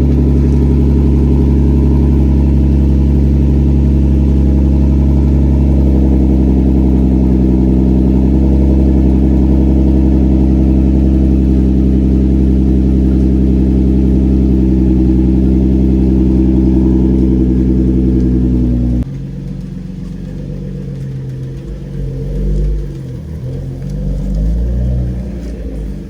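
Infiniti G35's 3.5-litre V6, breathing through a full Motordyne exhaust from the headers back, idling steadily and loud just after a cold start. About 19 seconds in the sound drops abruptly to a quieter engine note that rises and falls in pitch.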